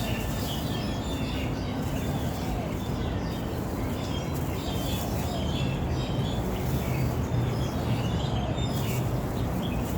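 Several small birds chirping and twittering in quick, overlapping short notes, over a steady low rumble of background noise.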